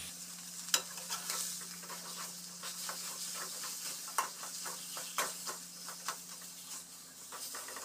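A spatula scraping and tapping against a kadai at an irregular pace as mashed boiled jackfruit seeds are stirred into the oil, over a light sizzle of frying.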